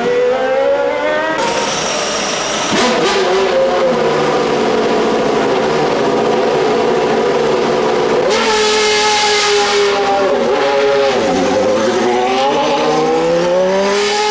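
Formula 1 racing cars at high revs, the engine pitch climbing under acceleration and dropping back at gear changes, with more than one car heard. The sound changes abruptly about a second and a half in and again about eight seconds in.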